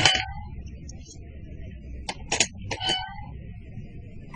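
A few sharp clicks and taps about two to three seconds in, from the toy cat coin bank being handled.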